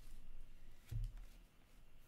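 Faint rustle and slide of trading cards being handled, with one soft low thump about a second in.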